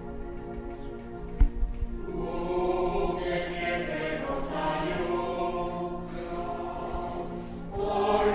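Choir singing: a held chord, then fuller singing from about two seconds in. A single low thump about a second and a half in.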